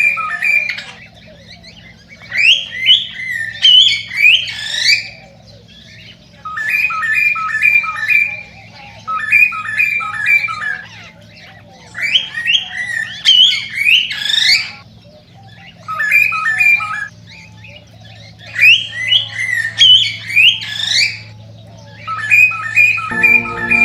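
Male cockatiel singing its courtship song. Bursts of short repeated chirps alternate with rising whistled warbles, over and over, above a steady low hum. Music comes in near the end.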